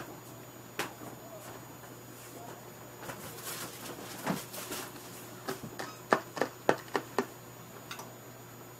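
Popcorn kernels heating in oil in a pot, with a faint sizzle, then five sharp clicks in quick succession about six seconds in.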